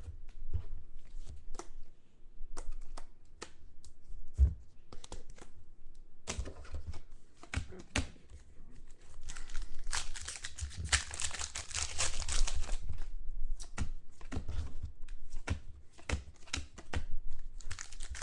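Trading card pack wrappers being torn open and crinkled, with cards handled and shuffled: a run of short crackles and ticks, thickening into a longer stretch of rustling about ten seconds in.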